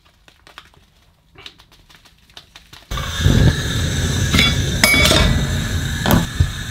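A stainless steel saucepan clinks and knocks against a gas hob's metal grate as it is moved, with two short metallic rings. Under it, a steady rushing noise starts abruptly about three seconds in.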